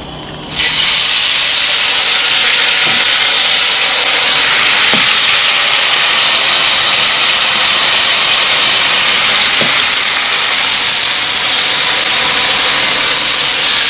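Thinly sliced, marinated flank steak hitting hot olive oil in a frying pan and sizzling loudly and steadily. The sizzle starts abruptly about half a second in.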